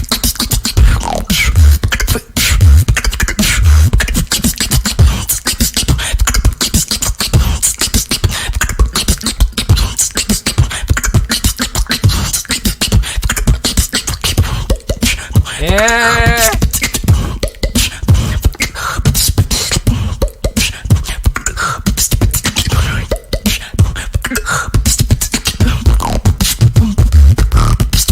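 Solo female beatboxer performing a fast routine of sharp clicks and snare-like hits over regular deep bass kicks. About halfway through comes a short pitched vocal tone that rises and falls.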